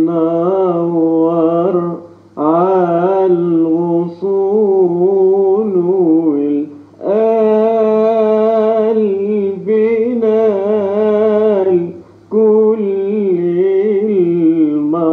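Man singing long, drawn-out, ornamented phrases of an Arabic song, in four phrases split by short breaths, over a faint steady low hum.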